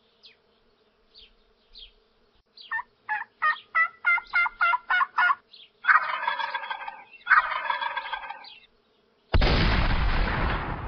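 Wild turkey calling: a run of about ten evenly spaced yelps, then two rattling gobbles. Near the end comes a sudden loud blast that dies away slowly.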